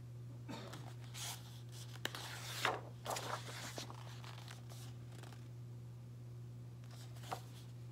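Pages of a large hardcover picture book being turned and handled: several short bursts of paper rustling and sliding in the first few seconds, with a click, then quieter handling. A steady low hum runs underneath.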